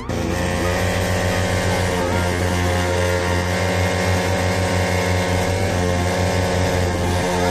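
Bajaj Pulsar NS200's single-cylinder engine running steadily through an aftermarket exhaust, a loud, even pulsing note that cuts in abruptly at the start.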